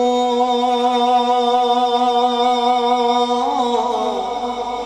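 A male naat reciter holds one long sung note, unaccompanied, steady for about three and a half seconds before it bends and wavers into an ornamented run near the end.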